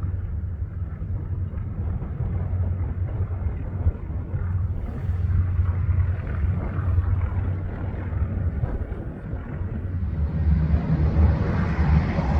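A North American SNJ-6 Texan's Pratt & Whitney R-1340 Wasp radial engine running with a deep, steady rumble. It grows louder about ten seconds in.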